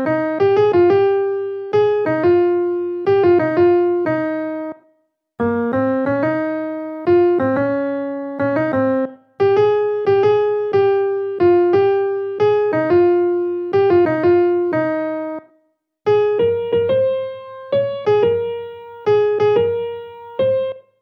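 Computer playback of a transcribed vocal melody in a piano sound: a single line of struck notes that each die away, pausing briefly twice.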